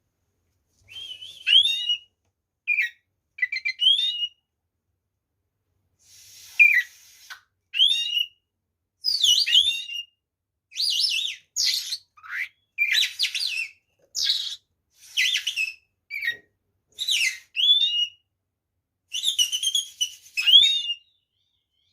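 Oriental magpie-robin (kacer) singing a vigorous fighting song: repeated short phrases of quick, sweet whistles, slurred notes and rising and falling glides, with brief pauses between phrases.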